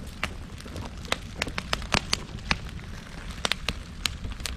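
Open burn pile of scrap wood, cardboard and household garbage burning, crackling with sharp pops at irregular intervals, a few each second.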